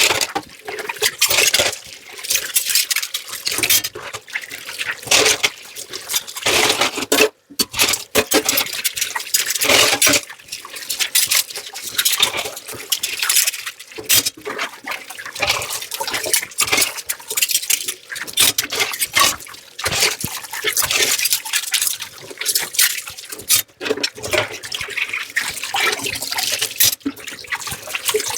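Running tap water splashing unevenly over dishes being washed by hand in a sink, with frequent short clinks and knocks of dishes being handled.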